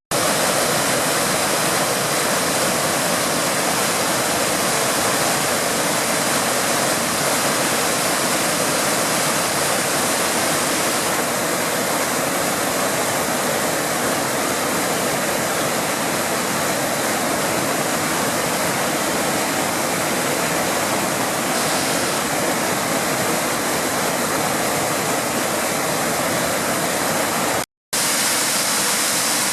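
Waterfall: a loud, steady, even rush of falling water, broken by a moment of silence near the end.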